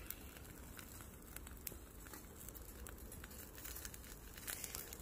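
Faint, irregular crackling with light clicks from a small wood fire burning inside a Bushbox XL folding metal stove.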